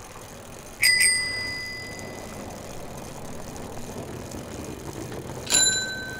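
Bicycle bell rung twice: a quick double ring about a second in, then a single lower-pitched ring near the end, each left to ring out and fade.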